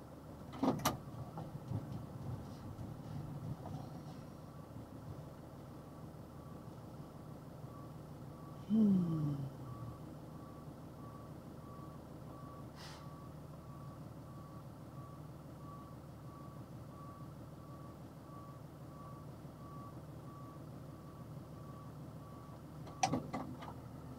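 Box truck's reversing alarm beeping about once a second, heard inside the cab over the engine's steady idle. A short loud sound falling in pitch comes about nine seconds in, and a few clunks come near the start and the end.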